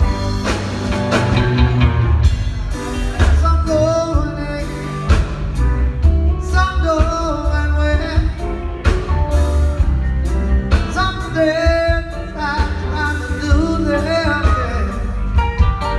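Live rock band playing: a male lead vocal over electric guitars, bass, drums and keyboards, with a heavy, steady bass and drum beat. Heard from the audience in a theatre.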